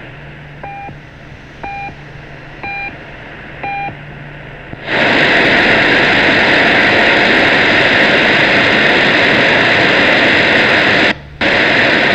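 Shortwave AM radio reception: four short, pitched beeps about a second apart, like time pips, then a loud, steady hiss of noise that starts about five seconds in and cuts out briefly near the end.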